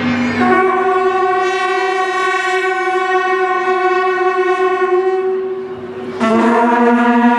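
Long, steady horn-like notes from the light show's soundtrack playing over loudspeakers. One note holds and fades about six seconds in, and a lower note comes in right after.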